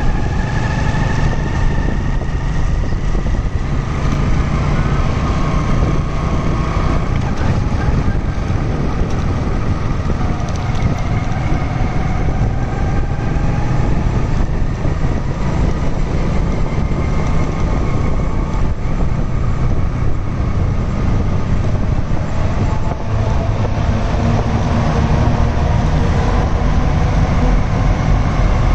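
Motorcycle riding on a wet road: the engine note rising and falling with speed over a steady heavy low rumble, with the hiss of tyres on wet tarmac.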